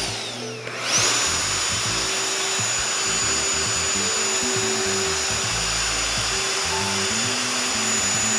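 Festool plunge router, with a dust-extraction hose attached, starting up about a second in and then running at speed with a steady high whine over a broad hiss from the dust extraction.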